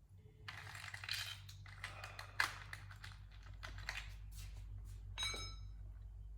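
Hand tools and Stihl MS440 chainsaw parts being handled on a workbench: scattered clicks, taps and rustles, with one sharp click about halfway through and a brief metallic ring near the end, over a steady low electrical hum.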